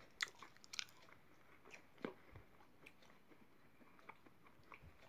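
Faint chewing and mouth clicks of someone eating a piece of soft khoya barfi: a few short clicks scattered over quiet room tone.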